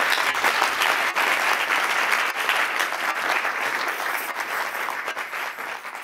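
Audience applauding at the close of a talk, the clapping slowly fading away.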